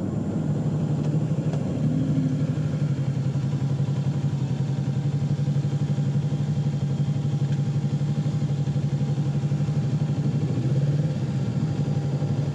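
A vehicle engine running at a steady speed: an even, low hum that barely changes.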